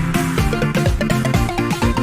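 Electronic background music with a steady beat, about four beats a second.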